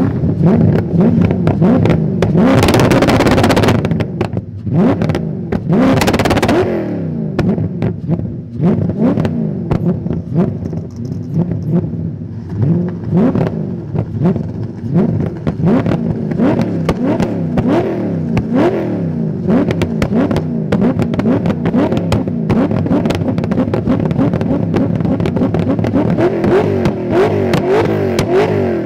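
Straight-piped BMW M62B44 4.4-litre V8 revved again and again in quick blips, its pitch rising and falling about once a second. About two to four seconds in, and again about six seconds in, a loud hissing rush rises over the engine.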